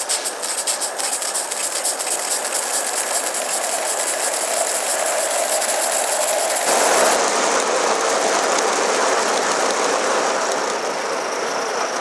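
Gauge 1 live-steam model of an A1 Pacific locomotive running past with rapid, even clicking over the track and a steady hiss. The clicking fades within the first few seconds, and about seven seconds in the sound changes abruptly to a louder, even hiss.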